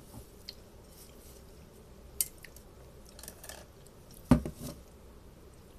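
Dishes and cutlery being handled: a few small clicks and clinks, then one louder knock with a dull thud about four seconds in, followed by a couple of lighter knocks.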